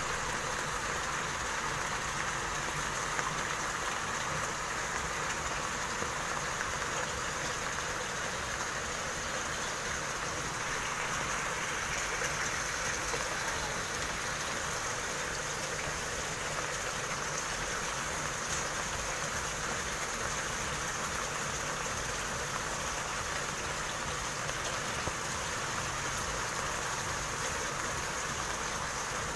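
Pond aeration jet running: water pumped through a submerged nozzle with air drawn in, making a steady rush of water and bubbles.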